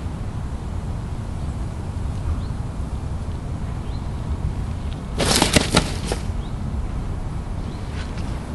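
About five seconds in, a landed fish flaps and slaps in a landing net for about a second. A steady low wind rumble on the microphone runs underneath.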